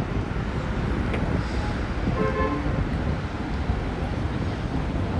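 Street traffic rumbling steadily, with wind buffeting the microphone.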